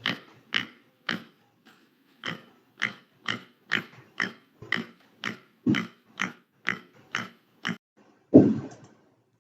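Pig grunting: a quick series of short grunts, about two a second, with a longer, louder grunt near the end.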